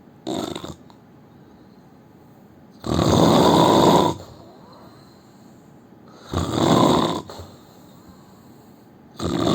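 A man snoring in his sleep: four snores with quiet breaths between them, roughly every three seconds. The first is short, the second, about three seconds in, is the longest and loudest, and the last starts just before the end.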